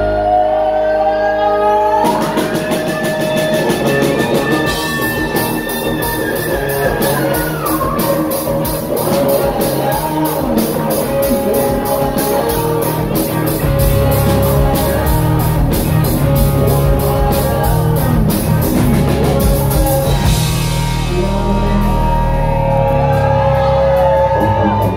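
Live rock band playing through a PA: drums keeping a steady beat under electric guitar and a singing voice. A held pitch glides upward in the first couple of seconds.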